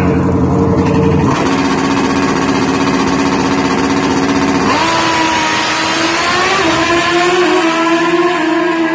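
Drag-racing motorcycle engine running hard at the starting line, then launching about five seconds in and accelerating away down the strip, its pitch climbing in steps.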